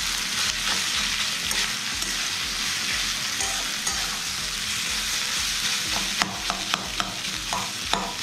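Mashed boiled potato sizzling in hot oil in a steel pan while a metal spatula stirs and scrapes it. About six seconds in, a run of sharp scrapes and taps of the spatula against the pan.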